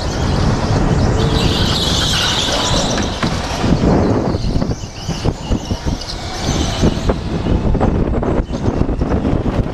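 Racing go-kart on an indoor concrete track, heard from the driver's helmet: rumble of the kart with wind buffeting the microphone. A brief high tyre squeal comes through about two seconds in as the kart corners.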